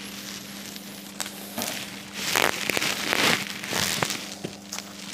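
Handling of black fabric webbing straps: a few bursts of rustling and scraping, mostly in the middle, with light clicks.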